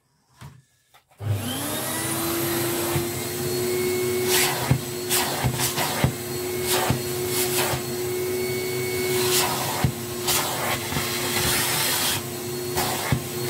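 A vacuum cleaner is switched on about a second in, its motor rising quickly to a steady pitch and running on steadily. Short scratchy noises come and go as the crevice tool is worked over a dust-caked filter pad.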